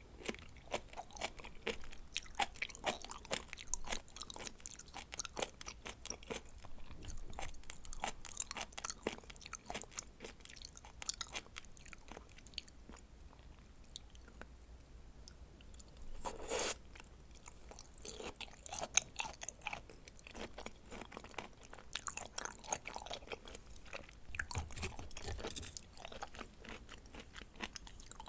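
Close-miked mouth sounds of someone chewing raw seafood sashimi: a steady run of short wet clicks and smacks, with one longer, louder sound about sixteen seconds in.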